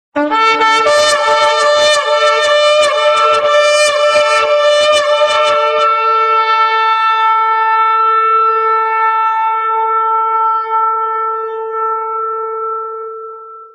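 Shofar blown: a rapid run of short broken notes for about six seconds, then one long held note that fades away near the end.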